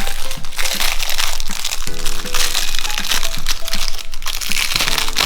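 Plastic wrapper crinkling and crackling as a blind-bag toy packet is pulled open, over background music with steady held notes.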